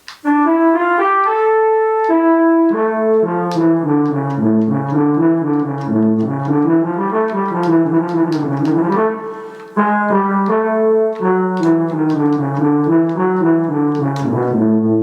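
Travel Sax 2 electronic wind instrument playing a melody on its French horn preset, a synthesized brass tone moving through a line of sustained notes, with a brief break about ten seconds in.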